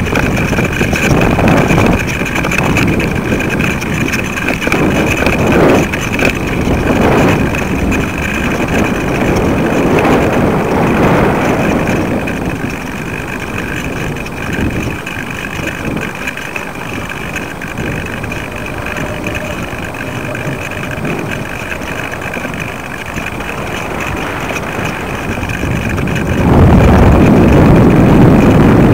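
Wind buffeting the microphone of a small camera hanging from a kite: a rushing rumble that rises and falls in gusts and grows louder near the end, over a steady faint high tone.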